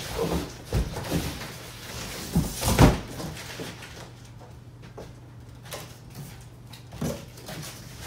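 A large cardboard shipping carton being lifted off a subwoofer and set down: cardboard scraping and rubbing with several knocks, and a heavy thud just under three seconds in as the box lands. A lighter knock comes near the end.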